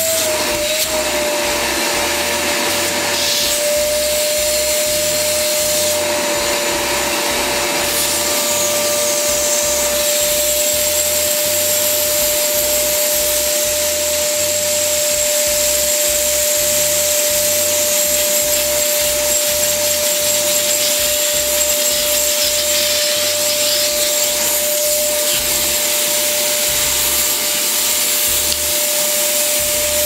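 Electrolux A10N1 wet-and-dry canister vacuum cleaner running steadily: a constant motor whine over the rush of air through the hose. It has just been serviced, with its foam filters cleaned and a new dust bag fitted.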